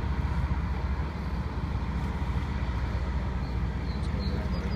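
Steady low outdoor rumble of road traffic and idling fire engines.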